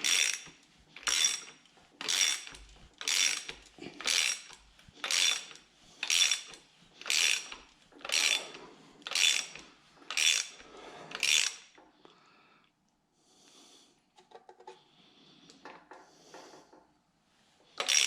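Ratchet wrench worked back and forth in steady strokes, about one a second, turning a bolt that draws a part onto the engine. Near the end the strokes stop, leaving a few light metal clinks and taps.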